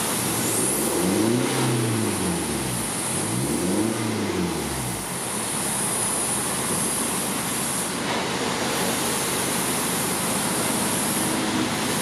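BMW 520d's 2.0-litre turbodiesel, fitted with a high-flow 200-cell catalytic downpipe, idling. It gets two quick revs about one and four seconds in, each rising and falling back, then holds a steady idle.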